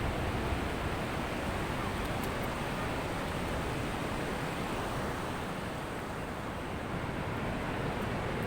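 Ocean surf washing onto a beach: a steady rush of breaking waves that eases a little past the middle and then builds again.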